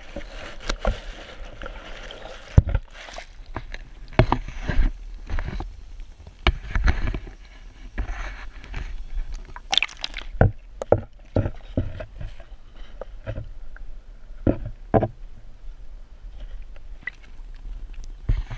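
Water sloshing and gurgling against a submerged GoPro's waterproof housing, muffled, with many irregular knocks and bumps as the camera is moved about among underwater weeds.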